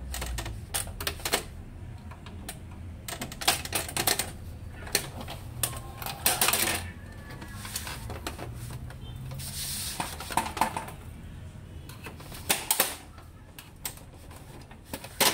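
Plastic and metal parts of an HP LaserJet M26a laser printer clicking and clattering as its covers are pried and lifted off with a screwdriver: scattered sharp clicks and knocks, with a couple of longer scraping rubs.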